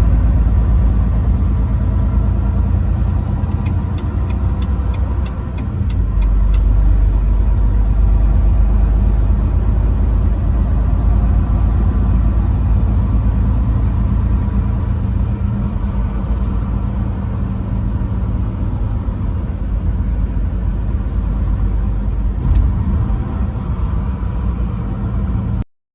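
Truck driving on the road: steady engine and road rumble, with a short drop in level about five seconds in. The sound cuts off abruptly just before the end.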